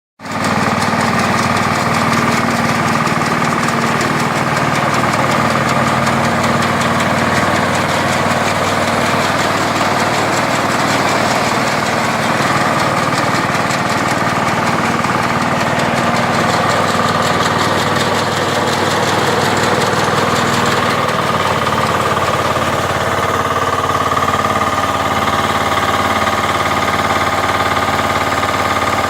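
Engine of a mini rice combine harvester running steadily, with a constant mechanical drone and machinery clatter, shifting slightly about two-thirds of the way through.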